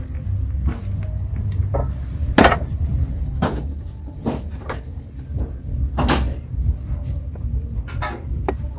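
Hinged cast-iron cake mould clanking against the steel bars of a charcoal stove as it is turned over and opened: a series of sharp metal knocks, the loudest about a third of the way in and again about two-thirds of the way in.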